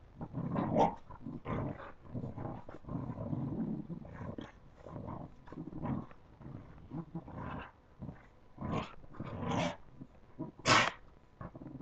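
Two boxer puppies play-growling and grumbling in irregular short bursts as they wrestle, with a few sharper cries, the loudest near the end.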